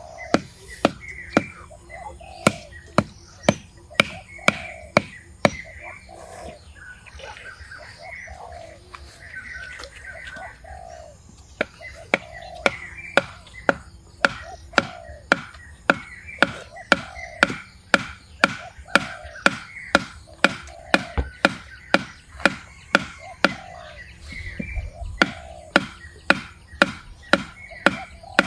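Steady chopping with a knife on a cutting board, about two strikes a second, stopping for several seconds about six seconds in and then resuming. A bird calls repeatedly in the background.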